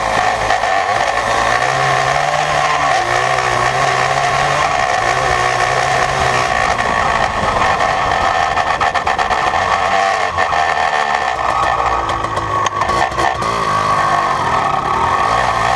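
Yamaha Blaster ATV's single-cylinder two-stroke engine breathing through an FMF Fatty expansion pipe and Power Core 2 silencer, running loud under riding load with its pitch shifting as the throttle changes. A patch of sharp clicks and knocks comes about three-quarters of the way in.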